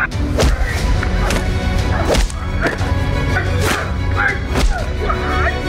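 A series of sharp swishing strikes, about one a second, over dramatic background music with a low drone.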